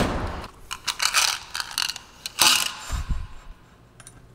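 Small steel dowel pins clinking as they are handled from a tool-cabinet drawer, with a sharp knock at the start, a few short clinks, and a dull thump about three seconds in.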